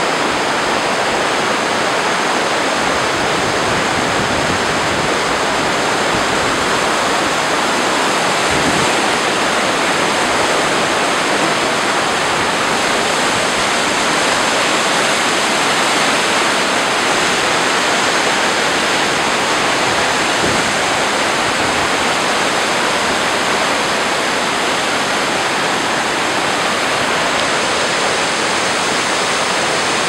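Fast mountain river rushing over rocks in whitewater rapids: a loud, steady, unbroken rush of water.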